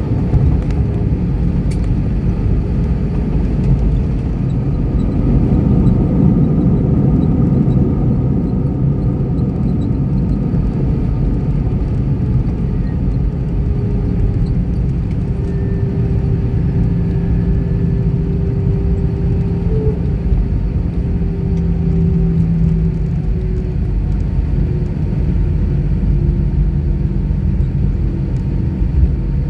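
Cabin noise of an Airbus A320-214 heard from a window seat over the wing: the steady low rumble of its CFM56 engines and airflow, swelling about six seconds in. From midway a steady engine hum sits over the rumble and slowly sinks in pitch.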